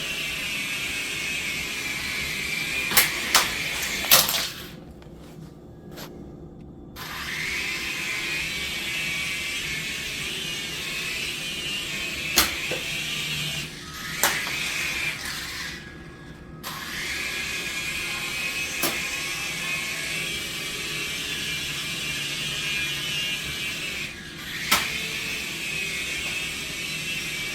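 Mini toy RC helicopter's small electric motors and rotors running with a high-pitched whine, which stops twice and spins back up with a rising pitch each time. Sharp knocks come now and then as the helicopter bumps or touches down.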